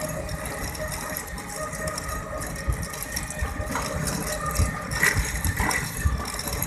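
Engine of a small vehicle running steadily, heard from on board as it moves along a road, with irregular low rumbling.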